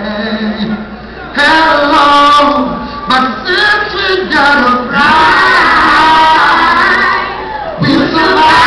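Live band music with singing, recorded loud from the audience: a lead singer with female backing vocals over the band. It drops briefly about a second in, then comes back in full.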